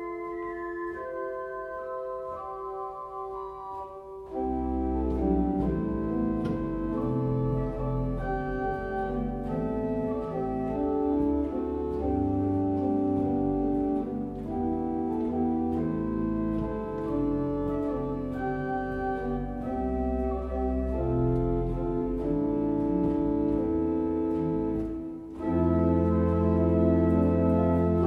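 Klais pipe organ (four manuals, 57 stops) playing sustained notes in a slow piece. At first only upper voices sound; about four seconds in, deep bass notes and fuller chords come in, and near the end the organ swells to a louder full chord after a brief drop.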